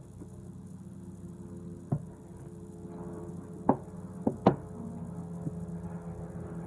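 A few sharp knocks from hands working slime in a bowl, the loudest about three and a half and four and a half seconds in. Under them runs a steady low hum from a passing helicopter, growing louder.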